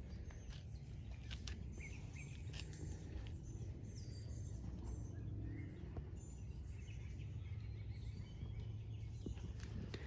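Faint outdoor ambience: a steady low rumble with a few small bird chirps, mostly around the middle, and scattered light ticks.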